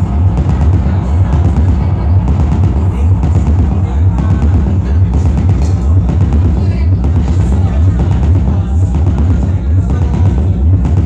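Live electronic music played on laptop and synthesizers: a steady, pulsing kick drum and deep bass under a dense layer of electronic percussion and textures, played loud through the club's sound system.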